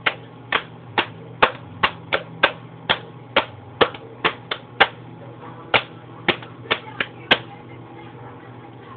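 A run of sharp, separate clicks, about two a second and unevenly spaced, stopping about seven seconds in, over a steady low hum.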